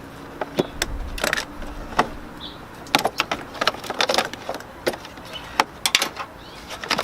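Irregular metallic clicks and clanks of a hand tool and loose metal parts at a car battery, as the battery terminals and hold-down are worked loose, with quick clusters of clicks partway through.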